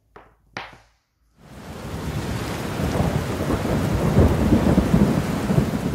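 Thunder rumbling over steady rain, swelling for about four seconds and then cutting off abruptly.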